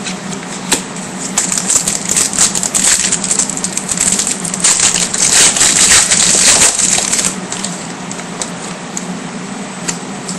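A foil trading-card pack wrapper being torn open and crinkled, making a dense irregular crackle that is loudest in the middle, over a steady low hum.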